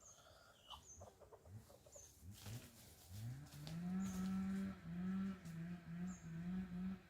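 Farmyard animals: a few short hen clucks and thin chick peeps, then about three seconds in a long, low, drawn-out call that rises at its start and breaks into short pulses near the end.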